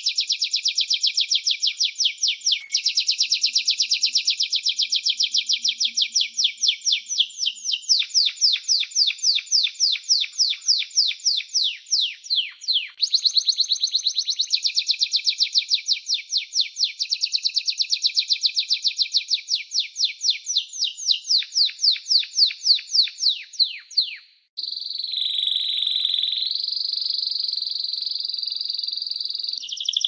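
Canary singing a long, continuous song of rapid trills: fast runs of repeated notes that switch to a new pattern every few seconds. After a brief break about three quarters of the way in, it moves into a held, rolling tone that steps up in pitch.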